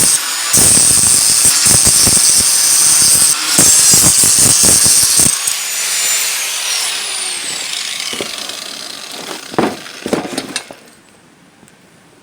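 Angle grinder cutting the metal mounting tabs off a steel rack, then coasting down with a falling whine once it is switched off, about six seconds in. Two sharp knocks follow near the end.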